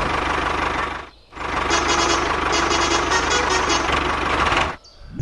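A vehicle engine running steadily. It breaks off for a moment about a second in and stops shortly before the end.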